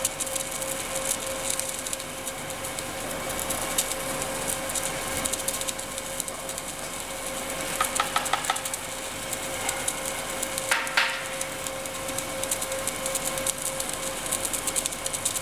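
Automated arc welding on a pipe elbow seam: the welding arc crackles steadily over a constant machine hum. Two short metallic clinks ring out about eight and eleven seconds in.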